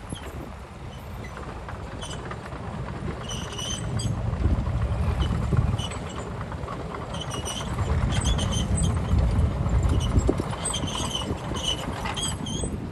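Heavy diesel machinery running with a low rumble that swells twice, under a run of short, high squeaks.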